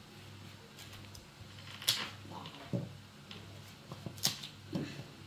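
Small kitchen knife cutting and paring a raw quince in the hand: four or so sharp, crisp cuts and scrapes over a low steady hum.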